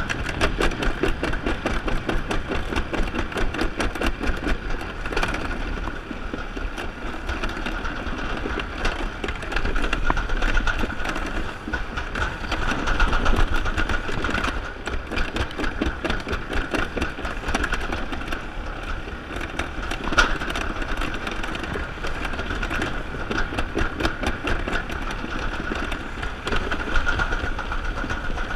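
Summer toboggan sled running fast down a metal trough track: a continuous rolling rumble and rattle of the sled in the channel, with a steady hum running through it.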